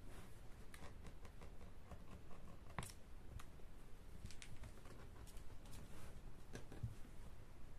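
Faint, irregular light clicks and scratches of a kitten scrabbling and pawing about in a blanket-lined plastic basket, with one sharper click about three seconds in.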